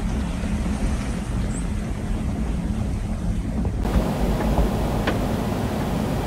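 Steady wind noise on the microphone, heaviest in the low end. A little under four seconds in it turns brighter and hissier, and a few faint ticks follow.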